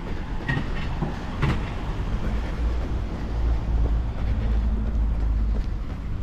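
City street traffic with the low engine rumble of a heavy vehicle such as a bus or truck, swelling about three seconds in and easing near the end. A few sharp clicks sound about a second in.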